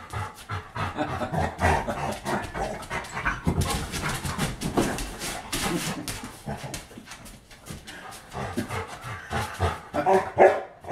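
A large dog panting rapidly, with whining mixed in and louder whines near the end.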